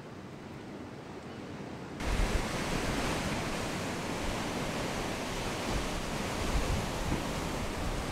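Heavy surf breaking on rocks, with wind gusting on the microphone. It starts abruptly about two seconds in, after a quieter open-air background.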